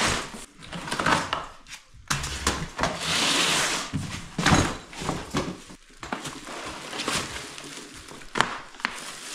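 Cardboard shipping box being torn and pulled apart, with plastic wrapping crinkling as it is handled. The sound is a string of irregular scrapes, rustles and knocks, with a longer rustle a few seconds in.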